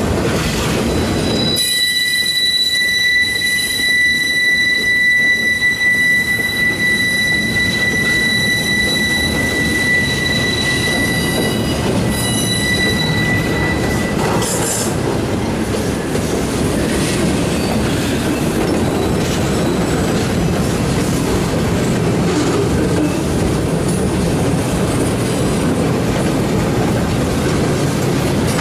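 Freight train flatcars rolling past with a steady, high-pitched wheel squeal from about a second and a half in, fading out about halfway through. After that comes the rumble and clatter of the cars' wheels on the rails.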